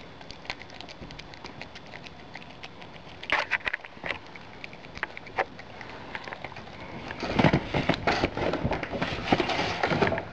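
A possum eating a banana: scattered wet clicks of chewing, then from about seven seconds in a louder, dense run of scrabbling and rustling as it moves about on the windowsill.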